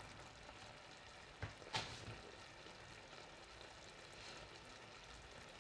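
Faint, steady sizzle of a creamy chicken and spinach sauce simmering in the pan on low heat, with two small clicks about a second and a half in.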